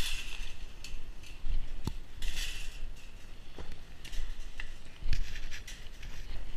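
Scattered sharp metallic clinks and rattles from a metal farm fence being handled, the loudest right at the start, with a short rustle between, over wind rumbling on the microphone.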